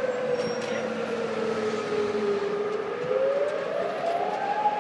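Civil defence warning siren wailing: one steady note that sinks slightly, then glides up to a higher pitch from about three seconds in. It is Kuwait's nationwide emergency warning siren sounding in a test.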